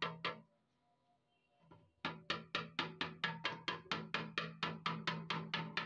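Steel fuel tank of a Honda CD 70 being tapped with a metal bar to work out a dent: rapid, even, sharp ringing taps, about four a second. The tapping stops for about a second and a half near the start, then picks up again at the same pace.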